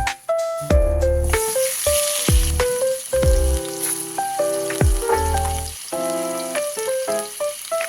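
Food sizzling as it fries, a steady crackling hiss that comes in about a second in, under background music with plucked bass and melody notes.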